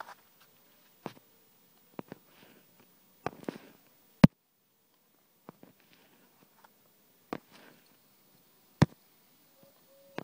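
A string of sharp, short clicks and knocks, about seven spread irregularly with quiet between them, the loudest about four seconds in.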